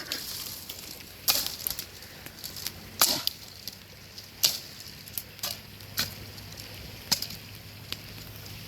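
Chopping: a series of sharp knocks, five strong ones spaced a second or more apart with lighter taps in between.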